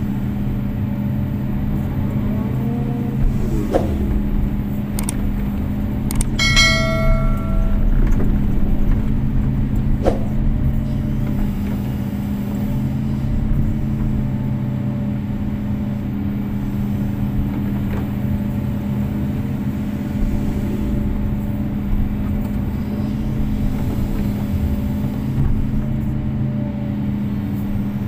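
Kobelco SK250-8 excavator's diesel engine running steadily under working load while the bucket digs mud from a ditch, heard from the cab. A few knocks, and about six seconds in a brief high metallic ringing.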